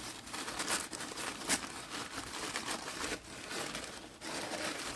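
Packing material crinkling and rustling as it is handled and pulled open by hand, with irregular crackles and a few sharper crinkles.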